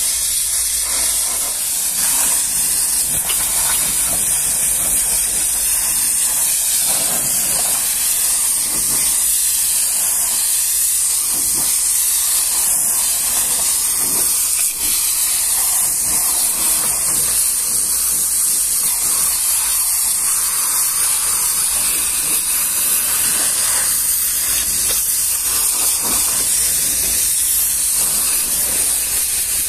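High-pressure water jet from a pressure-washer wand hitting the rear of a tanker trailer: a steady, loud hiss of spray that does not let up.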